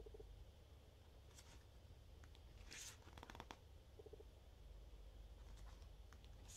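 Faint soft rustles of glossy booklet pages being turned by hand, with a longer rustle and a few light clicks near the middle and another page turn at the end.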